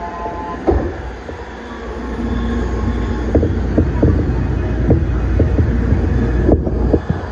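An E531-series commuter train running past on the next track, with a steady rumble and irregular clacks as its wheels cross rail joints, heavier from about halfway through. There are brief steady tones near the start, like faint wheel squeal.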